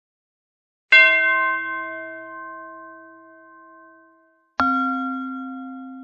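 Two bell-like chime strikes, the first about a second in and the second, lower in pitch, a little past halfway, each ringing on and slowly fading.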